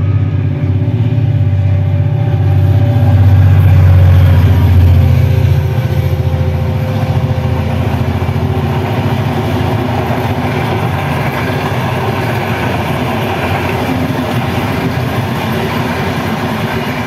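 Diesel-hauled passenger train passing at speed: a heavy engine rumble builds and is loudest a few seconds in as the locomotive goes by, then the coaches roll past with a steady wheel-on-rail noise.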